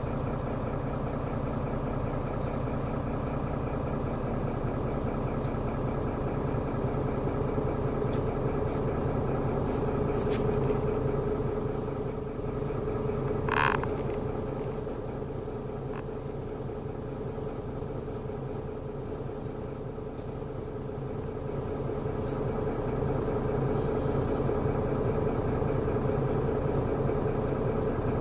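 City bus engine running, heard from inside the passenger cabin as a steady hum. About halfway through there is one brief high-pitched tone; the hum then drops for several seconds and grows louder again near the end.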